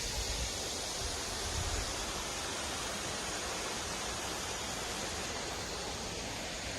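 Valley stream rushing steadily, swollen with rainwater. A few low rumbles in the first two seconds.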